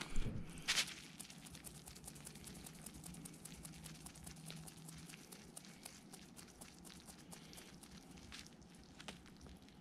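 An African pygmy hedgehog eating from a ceramic bowl: a run of small, irregular crunching and clicking sounds as it chews its food. Two louder knocks come in the first second.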